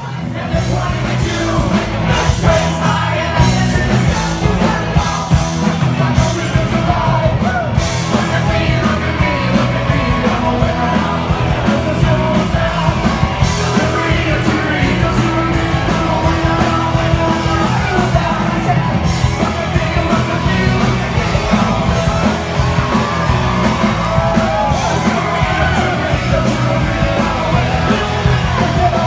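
Live rock band playing at full volume: drums, electric bass, electric guitar and keyboard, with a lead singer singing and yelling into a microphone.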